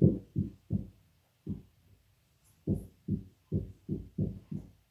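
Dry-erase marker writing on a whiteboard: a string of short, dull taps from the pen strokes against the board, several a second, with a pause of about a second near the middle.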